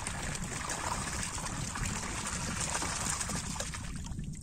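Water pouring from a plastic barrel into a large hole cut in lake ice, splashing onto the open water below. The pour stops about four seconds in.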